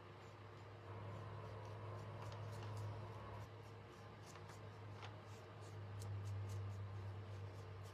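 A small paintbrush brushing and dabbing white paint onto a thin wooden cutout, with faint scratchy strokes and light taps over a steady low hum.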